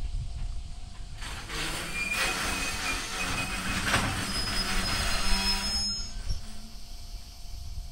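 Container freight wagons rolling past with a low rumble of wheels on rail. From about a second in until about six seconds in they grow louder, and a high-pitched steady squeal from the wheels rides over the noise, then fades.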